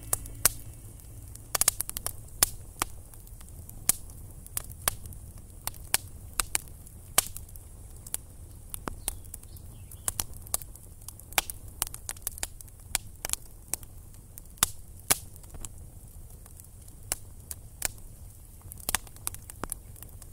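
Small campfire of sticks crackling, with irregular sharp pops, a few of them loud, over a low steady rumble.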